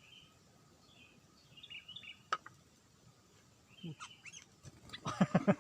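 Sooty-headed bulbuls (kutilang) giving short, scattered chirps, with a sharp click about two seconds in. A loud, rapid pulsing burst starts near the end.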